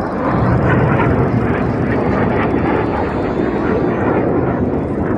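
BAE Hawk T1 jets with Rolls-Royce Turbomeca Adour turbofans flying past: loud, steady jet engine noise that swells just after the start and holds.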